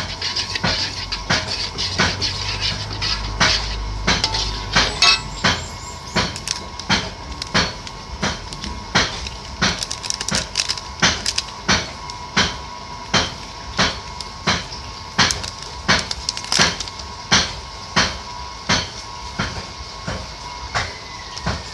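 Steady repeated knocks of kitchen food preparation, about two sharp strokes a second, over a faint steady hum.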